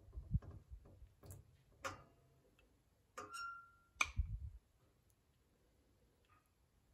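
Metal ladle clinking against a glass jar and the pot rim as cherry jam is ladled into the jar: a few sharp clinks, one with a short ring, the sharpest about four seconds in, with soft low thuds of the jar being handled.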